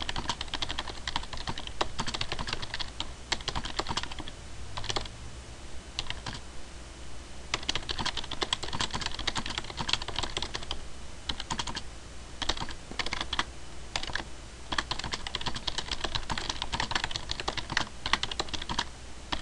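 Typing on a computer keyboard: quick runs of key clicks with short pauses between them, over a faint steady low hum.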